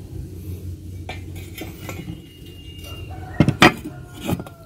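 A few metallic clanks and knocks as pieces are laid against a square metal tube, the tube ringing briefly after some of them; the loudest is a quick double clank about three and a half seconds in. The angle grinder is not running.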